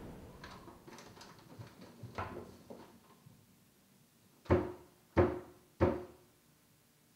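A few faint clicks and rustles, then three sharp knocks about two-thirds of a second apart, each ringing briefly.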